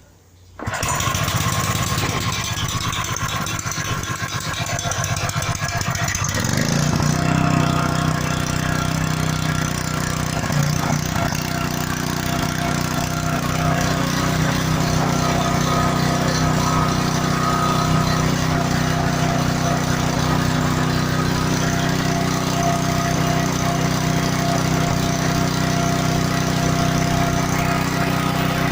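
Robin single-cylinder engine on a freshly overhauled pressure washer starting in one go about a second in, running with a distinct firing beat, then settling into a steady, higher-speed run about six seconds in.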